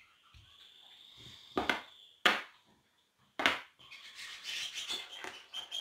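Three short knocks and scrapes of plastic things being handled on a tabletop: the lid of a plastic tub set down and a plastic tray touched and moved.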